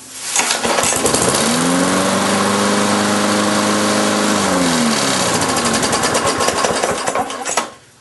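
Briggs & Stratton single-cylinder lawn mower engine running loud, rising in pitch, holding, then dropping back, and stopping abruptly near the end, which fits the just-reconnected kill switch shutting it off.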